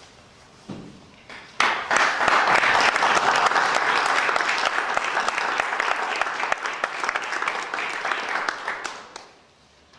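Audience applauding. A few scattered claps come first, then full clapping breaks out about one and a half seconds in and dies away near the end.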